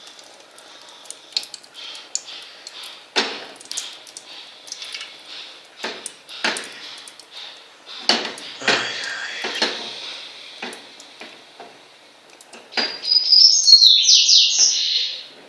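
Scattered knocks and scrapes of a utensil against a cooking pan holding candle wax melting into liquid paraffin, with a louder, high-pitched scrape lasting about two seconds near the end.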